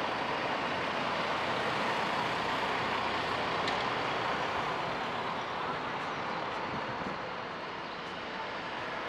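Road traffic: cars driving past on a town street, a steady wash of engine and tyre noise.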